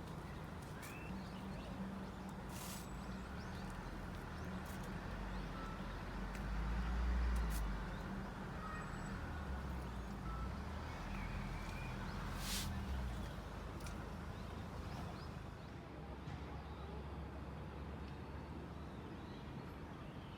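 Low rumble of distant traffic that swells twice, with a few short bird chirps and light clicks over it.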